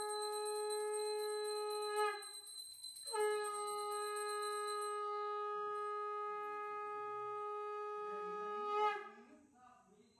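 Conch shell (shankha) blown in two long, steady blasts on one held note. The first breaks off about two seconds in, and the second starts a second later and ends with a brief swell near the end. Faint voices follow.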